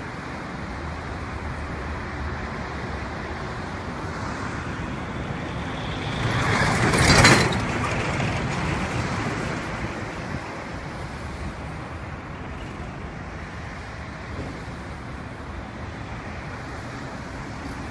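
Steady road traffic noise, with a large box truck passing close by: it swells to its loudest about seven seconds in, then fades over the next few seconds.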